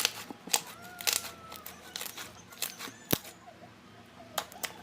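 Thick, glossy homemade slime being squeezed and folded by hand, its trapped air bubbles popping in sharp, crisp clicks every half second or so.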